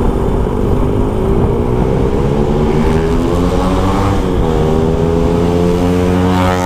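Honda Supra X 125's single-cylinder four-stroke engine running steadily under way, its pitch dipping slightly and picking up again about four seconds in.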